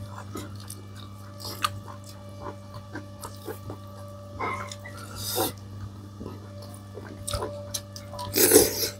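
Eating sounds: chewing and small clicks of food and utensils on a plate, with a few louder noisy bursts about halfway through and near the end, over a steady low hum.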